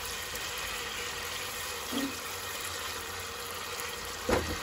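Prawns cooking in oil and their own liquid in a nonstick pot, giving a steady sizzling hiss. A short knock sounds near the end.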